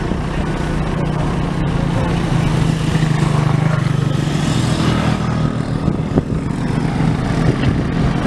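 Motor vehicle engine running with a low drone that grows louder about three to five seconds in and then eases off, like a vehicle passing, with scattered small knocks and rattles.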